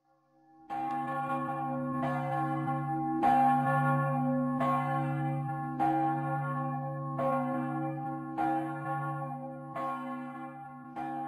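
A bell tolling steadily, about one stroke every 1.3 seconds, each stroke ringing on into the next, slowly fading.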